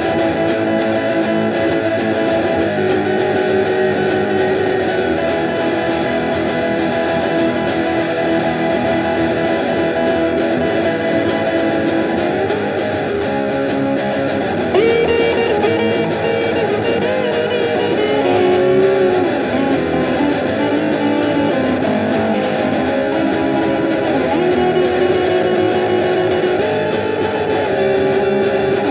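Background music led by guitar, with steady held notes and a higher melody line coming in about halfway through.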